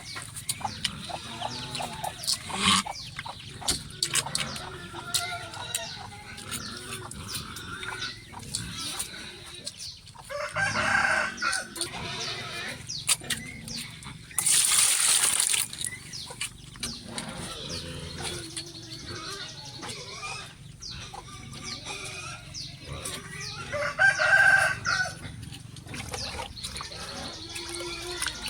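A rooster crows twice, about ten seconds in and again near the end, over scattered clicks and knocks. Halfway through there is a short loud rushing noise.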